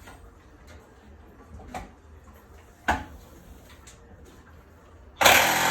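A few light knocks of a socket being worked onto a hex, then near the end a Craftsman 20-volt half-inch cordless impact wrench starts hammering loudly, breaking the water heater's anode rod loose.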